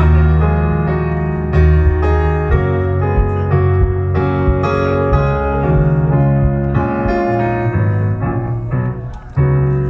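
Live band playing an instrumental interlude of keyboard chords over a bass line between sung sections, dipping briefly just before the end.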